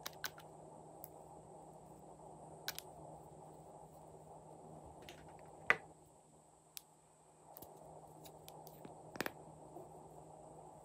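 Faint clicks and taps of small plastic makeup bottles and their brush applicators being handled, a few seconds apart, the loudest about six seconds in, over a steady low hum.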